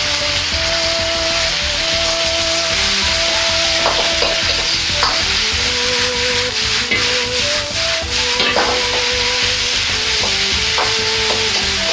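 Molokhia leaves sizzling in hot oil in a wok, a steady hiss, while a metal ladle stirs and tosses them, clinking and scraping against the wok several times through the middle.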